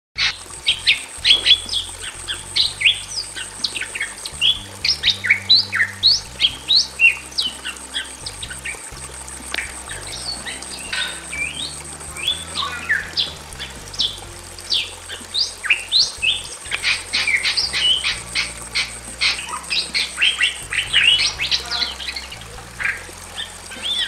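A pair of Bali mynas, male and female, calling loudly: a rapid, almost unbroken run of short sharp notes and squawks, many sliding up or down in pitch.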